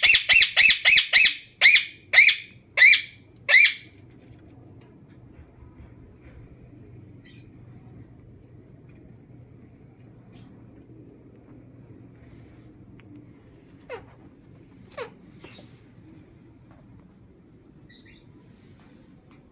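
A parrot screeching: a fast run of loud, harsh calls that slows to three single calls and stops about four seconds in. After that, a steady, high, pulsing insect-like trill carries on, with two short falling chirps near the end.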